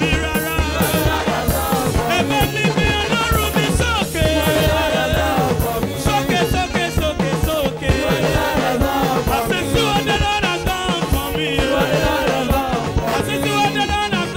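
Live church praise music: a man singing into a microphone over a band with a steady bass beat.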